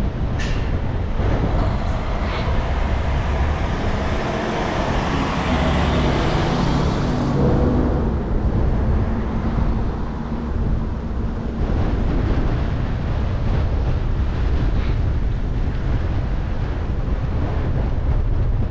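Wind rumbling on a bicycle-mounted action camera's microphone during a ride, with a motor vehicle passing close by, loudest about four to seven seconds in.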